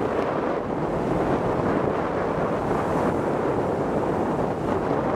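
Steady wind buffeting the microphone, with sea waves breaking and splashing against the bow of a small car ferry.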